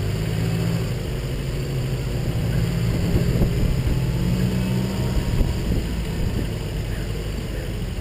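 Car engine running steadily with road and wind noise, picked up by a camera mounted on the car's hood as it drives.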